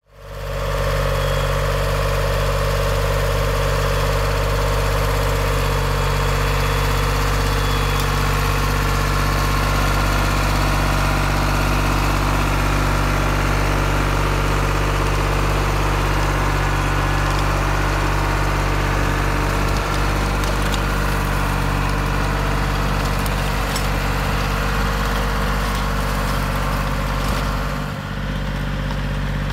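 Tractor engine running steadily while driving a PTO-powered under-vine tiller through the soil, fading in at the start, with a brief dip near the end.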